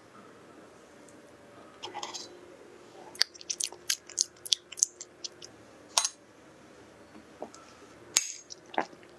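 Close-miked eating sounds: a quick run of sharp clicks and smacks from about three to six seconds in, then a few more near the end, while a slice of burnt cheesecake is tasted.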